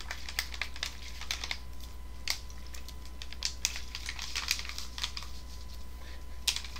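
Plastic water bottle being shaken and handled to mix in drink flavouring: irregular crinkling clicks and crackles of the thin plastic.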